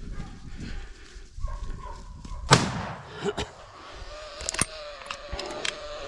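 A single gunshot about halfway through, its echo trailing off, followed by a smaller crack and a few light clicks.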